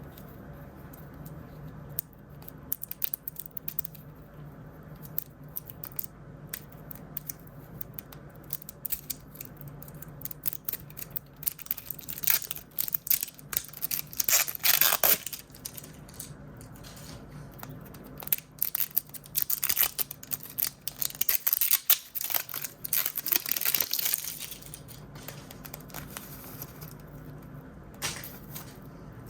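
Plastic blind-bag packaging being torn open and crinkled by hand, a run of sharp crackles and tearing with two longer, louder spells of crinkling through the middle, over a faint steady hum.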